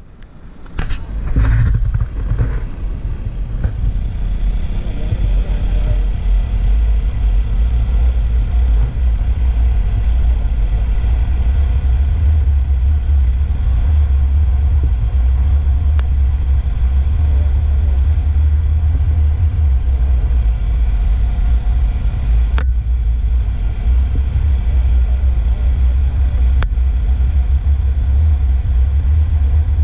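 Scooter riding along at road speed: a steady, loud low rumble of wind buffeting the microphone over the engine and road noise. A few knocks in the first couple of seconds as the camera is handled, and a couple of single clicks later.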